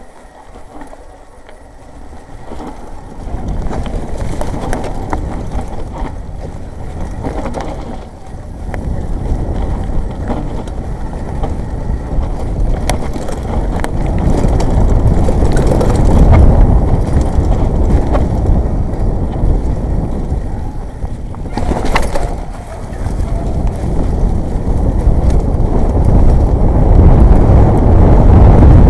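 Jamis Dragon 29 mountain bike riding fast on a muddy trail: a heavy rush of wind on the action camera's microphone with tyre and rattle noise, growing louder from about three seconds in, with a sharp knock a few seconds before the end.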